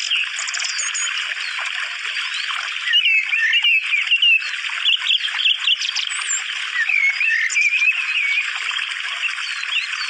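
A dense chorus of many songbirds chirping and whistling at once, with short rising and falling notes overlapping one another.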